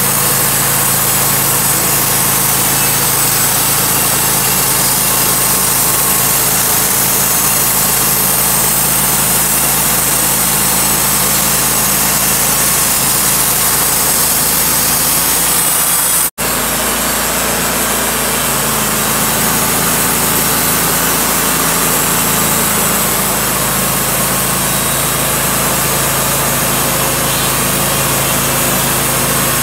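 Wood-Mizer LT35 bandsaw mill running steadily at full speed, its band blade sawing through a walnut log. The sound cuts out for an instant about halfway through, then carries on unchanged.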